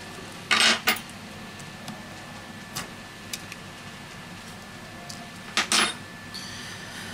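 Plastic and metal parts of an opened smartphone being handled on a work mat: two short clattering scrapes, one about half a second in and one near the end, with a few faint clicks between them.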